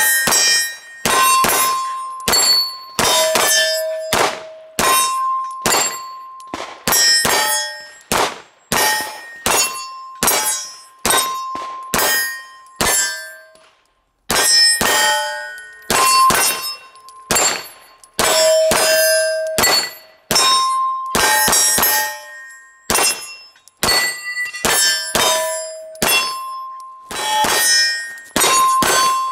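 9mm pistol fire at steel targets: shots about one a second, each followed by the ringing of a struck steel plate, the plates ringing at two different pitches. First a SIG P226 Legion SAO, then, after a brief break about halfway, a SIG P320 X5 Legion.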